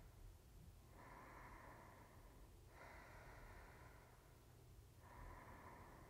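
Faint, slow, deep human breathing: three long soft breath sounds one after another, starting about a second in, over a faint low hum.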